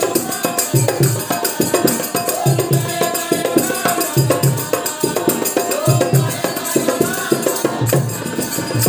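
Bengali Manasa kirtan: a group of women singing a devotional chant, led by one woman, over a double-headed hand drum beaten in a steady rhythm and clashing brass hand cymbals.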